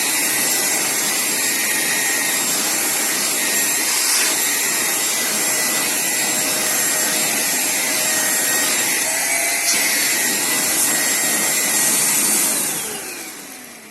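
Britânia 1000W upright vacuum cleaner running with its upholstery nozzle, sucking biscuit crumbs off a chair's upholstered seat. Near the end it is switched off and its motor whine falls away.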